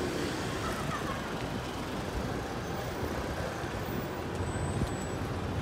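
City street ambience: a steady rumble of road traffic, with wind buffeting the microphone.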